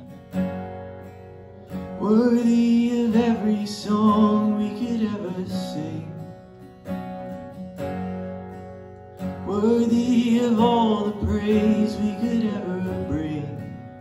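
Acoustic guitar strummed while a man sings a worship song into a microphone. He sings two phrases, with the guitar carrying on alone between them.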